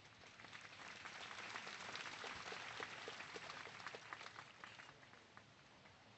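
A large audience applauding, faintly. The clapping swells about a second in and dies away about five seconds in.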